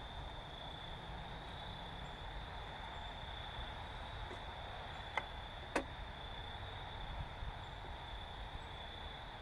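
Two short clicks about half a second apart, from screwdriver and metal parts of an old light fixture being worked apart, over a steady faint hiss and a constant high-pitched whine.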